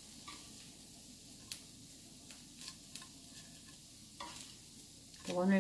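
Thin beef slices frying in a little cooking oil, a steady low sizzle. A few light clicks of chopsticks against a plate come as the cooked pieces are laid out.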